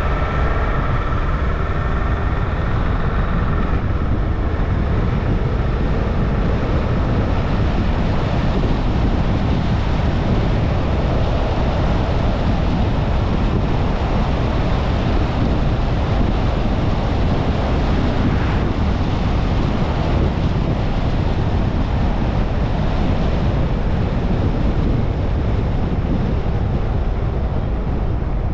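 Steady road and wind noise of a car on the move: a loud low rumble with a hiss over it. A faint whine bends up and down in pitch during the first few seconds.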